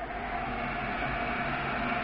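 Shop vacuum running steadily, an even rushing noise with a faint hum, its hose held at a battery cell terminal.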